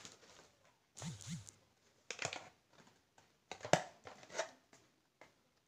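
Handling of a cardboard product box and plastic packaging during an unboxing: a string of short rustles and scrapes, with one sharp knock about two-thirds of the way through as the action camera in its plastic case is lifted out.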